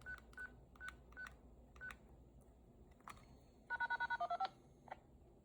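Keypad beeps as digits are typed: five short, single-pitched beeps in the first two seconds. Then, nearly four seconds in, a quick burst of about ten DTMF tones is sent: a siren-controller command with extra digits added, which the Arduino controller ignores.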